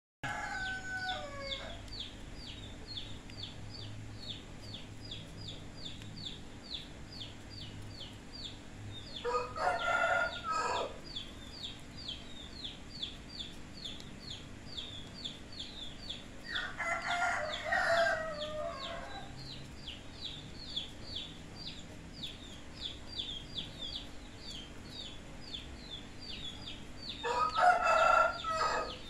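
A rooster crowing three times, each crow lasting about two seconds, over a steady run of short, high chirps at about three a second.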